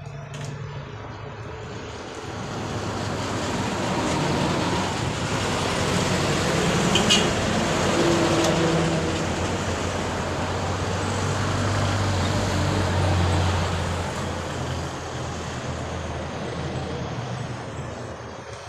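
Street traffic passing: vehicle engines and tyre noise swell over several seconds and then fade, with a low engine hum loudest about twelve seconds in and a short high squeak about seven seconds in.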